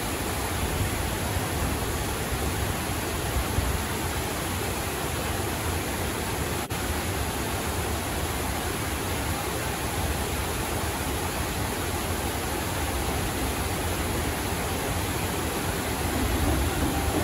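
River water rushing steadily over a low stepped weir and rocks, a dense unbroken wash. Near the end the rumble of a train coming onto the bridge begins to rise faintly under it.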